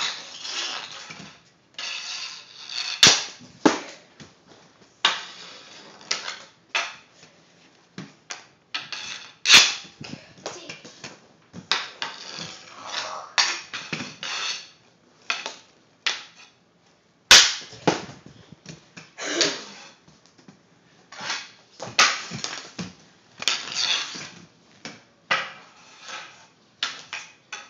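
Hockey puck being shot and sliding on a concrete floor: repeated sharp cracks of stick and puck impacts at irregular intervals, each with a short scraping slide of puck or stick across the concrete.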